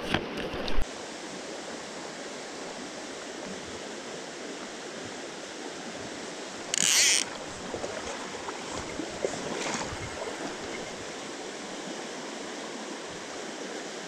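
Shallow mountain stream running over cobbles and riffles, a steady rushing of water. About seven seconds in there is a short, loud hiss, and there are a few faint clicks in the first second.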